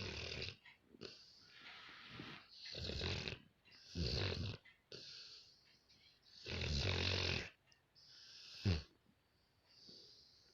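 Rottweiler snoring in its sleep, with irregular snores a second or two apart and one short, louder snore near the end.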